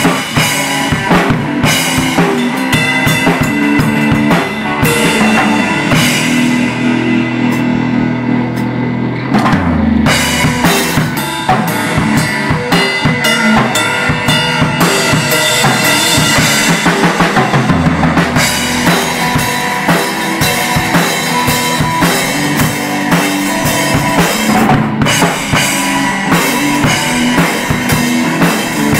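Music with a busy drum kit of bass drum, snare and cymbals keeping a steady beat over held bass notes.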